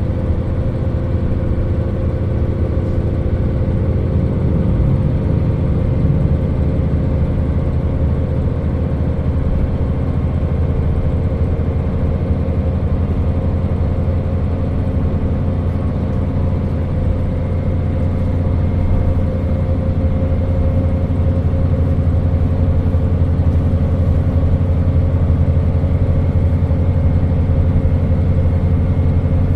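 Diesel engine of a KiHa 40 railcar running steadily, heard inside the car, growing slightly louder about two-thirds of the way through.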